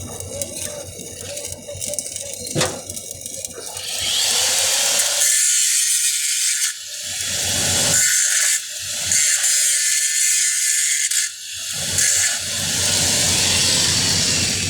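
Welding arc, starting about four seconds in as a loud, steady high hiss that breaks off briefly three times before running on.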